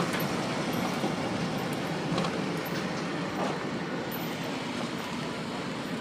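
Steady rumble of a vehicle driving over a rough dirt road, heard from inside the cabin: engine and tyre noise, with a couple of faint clicks or rattles.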